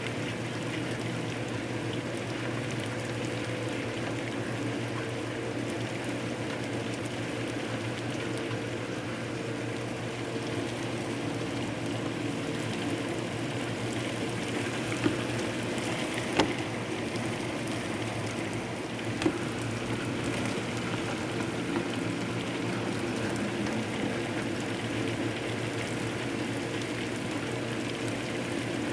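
Hard thunderstorm rain pouring steadily, with a few sharp taps about halfway through.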